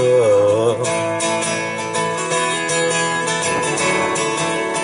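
Acoustic guitar strummed in a steady rhythm, a man's held sung note trailing off in the first second.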